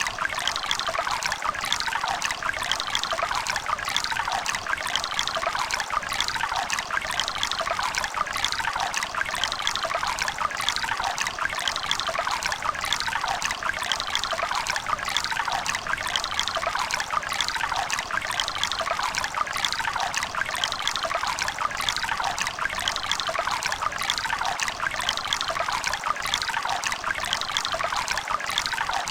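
River water running over rocks, a steady trickling and babbling with many small splashes.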